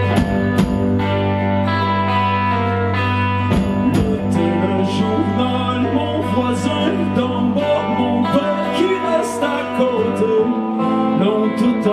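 Live band music: guitars playing over a held low bass note, with a few sharp hits near the start. The low note fades out near the end.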